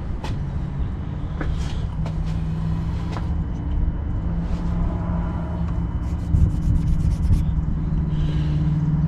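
A steady low mechanical rumble with a low, even hum, and a quick run of faint ticks about six seconds in.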